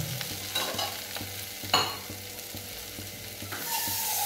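Split lentils frying in oil in a steel kadai, sizzling steadily while a steel ladle stirs them, clinking against the pan a few times, most sharply about two seconds in. Near the end a louder, steadier hiss sets in.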